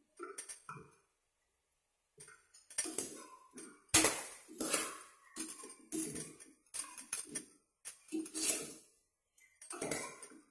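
A slotted steel spatula stirring chicken pieces in a steel pot, scraping and clinking against the metal in an irregular run of strokes from about two seconds in.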